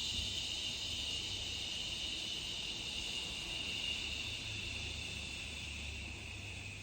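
A person's long, steady 'shhh' exhale, the breath pushed out through the teeth, slowly weakening and dropping a little in pitch near the end as the lungs are squeezed empty.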